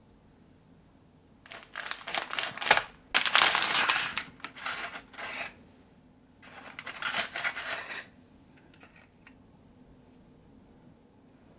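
Plastic packaging of store-bought biscuits crinkling and clattering as biscuits are taken out, in two bouts: a longer one from about a second and a half in, then a shorter one past the middle.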